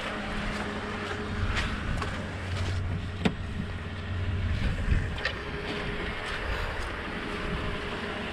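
Toyota Tundra's 5.7-litre i-Force V8 idling steadily, with wind on the microphone and a single sharp click about three seconds in.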